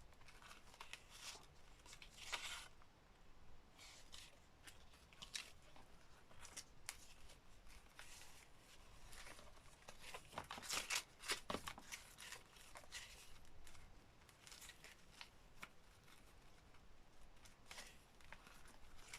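Faint paper rustling and light clicks as sheets of paper and card are flicked through and handled, with a busier patch of rustling about ten seconds in.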